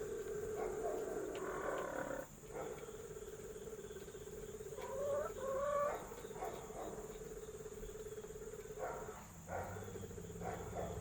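Laying hens calling as they get ready to lay an egg: drawn-out, rising and falling calls and clucks, loudest about five to six seconds in, over a steady low drone. A steady high insect chirr, typical of crickets, runs underneath.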